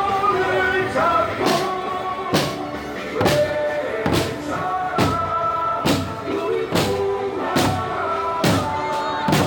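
March music with a melody over a big drum struck on a steady beat, a little more than once a second.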